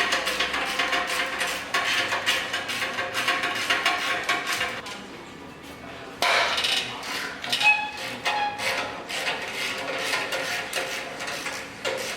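Rapid metallic clinks and knocks of hand tools on car parts, with music playing behind them. The clinking drops off for about a second around five seconds in, then picks up again.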